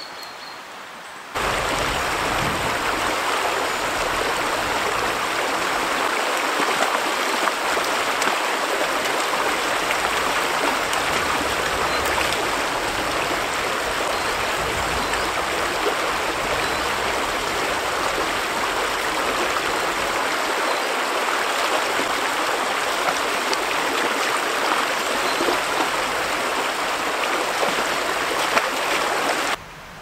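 Shallow stream running over rocks, a steady rush of water. It starts abruptly about a second and a half in and cuts off abruptly just before the end.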